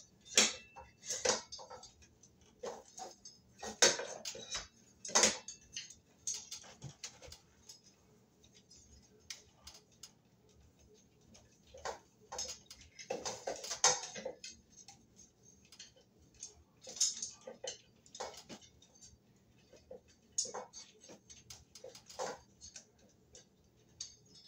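Irregular clicks, rattles and scrapes of the Harbor Breeze Camden ceiling fan's canopy being pressed against the ceiling mount while the spliced wires are pushed up inside it, with a busier cluster a little past halfway.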